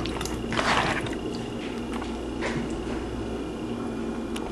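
Wet squishing of a hand rubbing spice marinade into whole tilapia, strongest about half a second to a second in, with another brief squish about two and a half seconds in, over a faint steady hum.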